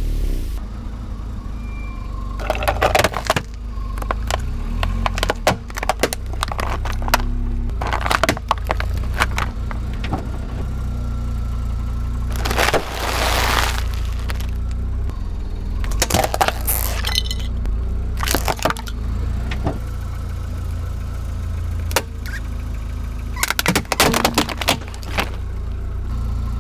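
A car's engine running low while its tyres roll over and crush objects one after another: repeated sharp cracks, crunches and snaps, with one longer noisy burst around the middle and a cluster of cracks near the end as a plastic colander breaks apart.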